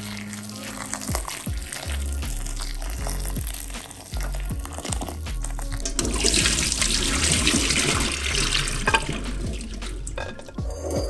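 Water poured from a glass bowl through a metal mesh sieve splashes into a stainless steel sink for about three seconds, starting about six seconds in. This is the drain after broccoli has been blanched in boiling water. Background music plays throughout.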